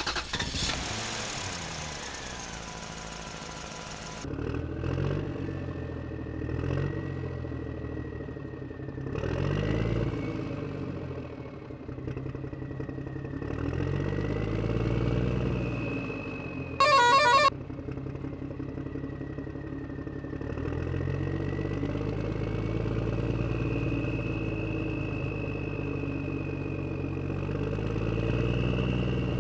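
Construction vehicle's engine running and revving up and down again and again, with a short horn beep about 17 seconds in.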